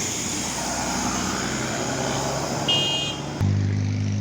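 Large bus driving past, a steady rush of engine and tyre noise, with a brief high-pitched beep about three seconds in. It then changes abruptly to a steady low engine hum.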